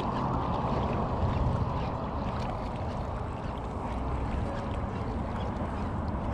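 Wind buffeting the microphone over small waves lapping against a rocky shoreline: a steady rushing noise with a low rumble and faint scattered ticks.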